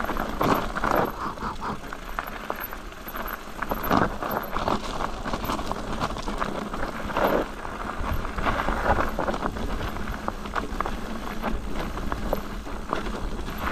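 Mountain bike rolling down a rough, stony trail: tyres crunching over loose rock and the bike rattling, with frequent short knocks and clicks.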